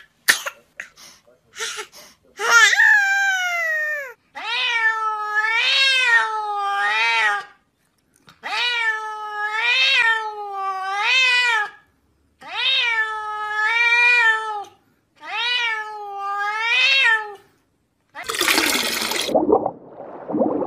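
A cat meowing over and over: about a dozen long, wavering meows in runs of two or three with short pauses between. Near the end comes a loud rushing whoosh.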